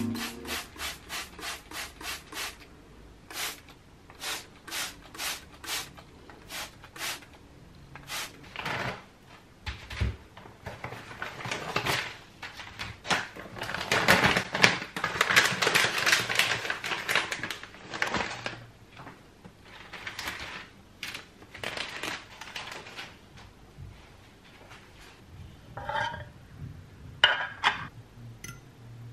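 Crinkly plastic bag rustling as bread rolls are taken out, loudest about halfway through, after a run of short rubbing strokes at the start. Near the end, a metal fork clinks against a glass jar a few times.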